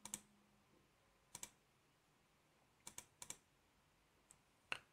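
Faint computer mouse clicks against near silence: about four quick pairs of clicks and one single click, spaced roughly a second apart.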